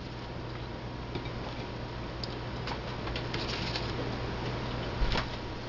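Paper towel crinkling and light handling clicks as deep-fried battered balls are moved onto a ceramic plate, with one sharper knock about five seconds in, over a steady low hum.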